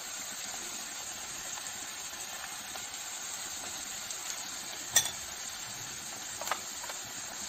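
Snake gourd pieces sizzling in hot oil in an iron kadhai as they are stirred with a ladle. The ladle knocks sharply against the pan about five seconds in, and more lightly a second and a half later.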